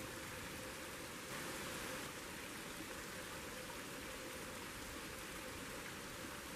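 Steady, even rushing hiss with a faint steady hum under it, swelling slightly about a second and a half in.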